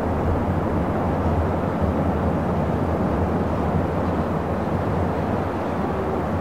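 Busy city traffic heard from a distance: a steady low rumble of many vehicles blended into one even roar.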